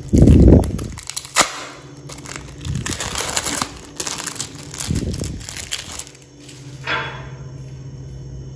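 Thin plastic wrapper crinkling and crackling in short bouts as it is peeled off a processed cheese slice. It opens with a dull thump, the loudest sound, and a sharp click follows about a second later.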